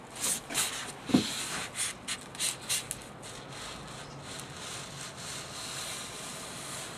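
Razor blade slicing through flat Styrofoam on a board: short scratchy strokes, quickest in the first few seconds, with a brief squeak about a second in, then a fainter steady scratching.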